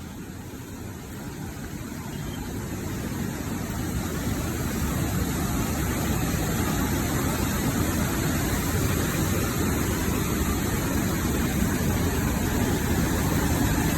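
Waterfall rushing, a steady roar of falling water that grows louder over the first several seconds and then holds.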